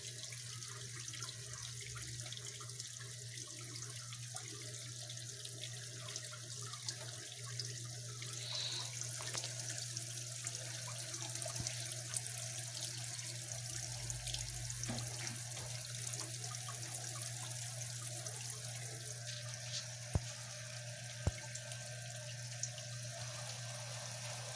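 Frigidaire 1-18 top-loading washer in its rinse: water spraying and splashing steadily onto the load in the tub, a constant hiss over a steady low hum from the running machine.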